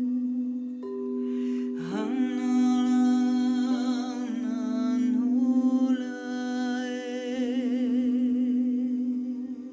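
Crystal singing bowls ringing with steady, sustained tones, a second bowl tone joining about a second in. Over them, a voice hums or tones wordlessly with vibrato, sliding up into a long held note about two seconds in.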